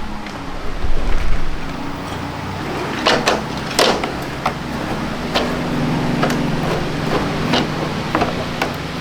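A motor running with a steady low hum that shifts slightly about halfway through, with scattered sharp clicks and knocks of tools or parts.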